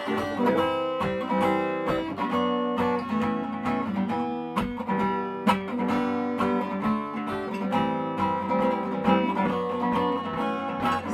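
Six-string acoustic guitar strummed, chord after chord, with no singing.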